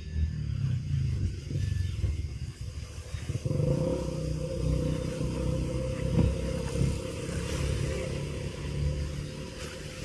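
A motor vehicle engine running, a low steady rumble; a steady higher hum joins about three and a half seconds in.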